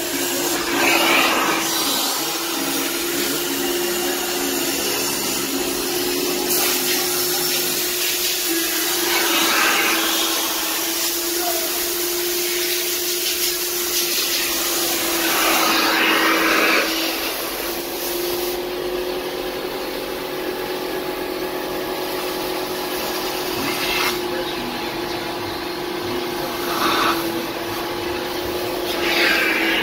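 Kärcher Puzzi 10/1 spray extractor's vacuum motor running with a steady hum and hiss as the upholstery nozzle sucks water and dirt out of a fabric car seat. A few times the hiss swells briefly, as the nozzle is drawn across the fabric.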